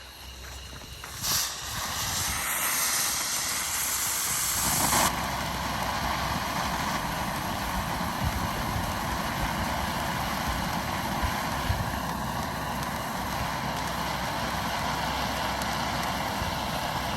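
500-gram consumer firework fountain lit and spraying. A short spurt about a second in leads to a high hiss, and around five seconds in it settles into a louder, steady rushing hiss with a few sharp crackles.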